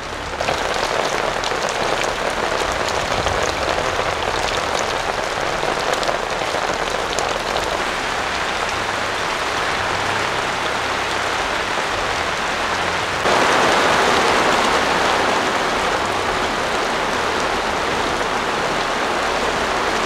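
Torrential rain falling steadily, a dense hiss like a waterfall, turning abruptly louder about thirteen seconds in.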